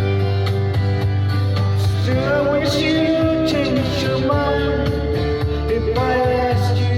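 Country-folk song playing, acoustic guitar over a steady bass, with a sustained melody line, sung or played, gliding through the middle.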